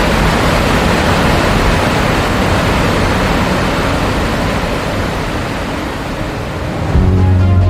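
Waterfall rushing, a steady dense roar of falling water, easing a little before electronic music comes in near the end.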